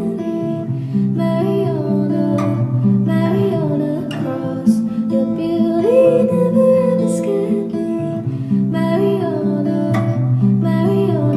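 Music: a song with strummed acoustic guitar under a singing voice.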